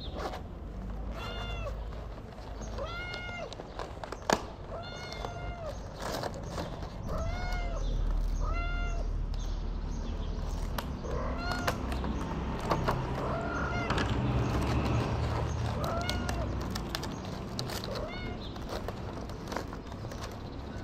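Tuxedo cat meowing over and over, a dozen or so calls that each rise and fall in pitch. They come about once a second in the first half and are more spread out later.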